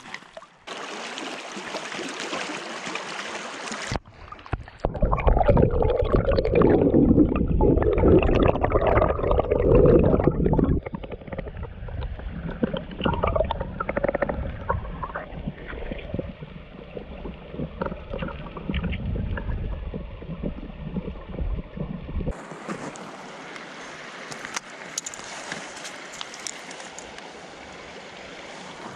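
Shallow creek water running over gravel. About four seconds in, the microphone goes underwater and the flow turns louder, deeper and muffled; a few seconds before the end it comes back up into the open, higher-pitched rush of the stream.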